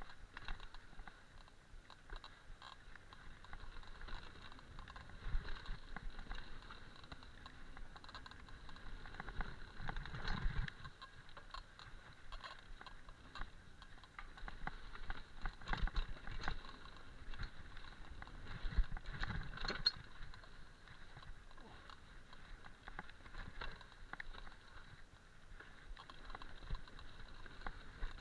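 Mountain bike riding down a dirt singletrack: tyres rolling on the dirt, with the bike rattling and knocking over bumps, a few harder knocks scattered through.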